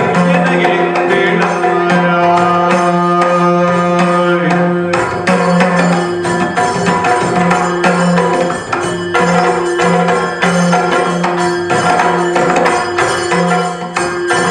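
Yakshagana accompaniment: chende and maddale drums beating fast, dense rhythms over a steady drone held at two pitches, with jingling metal percussion.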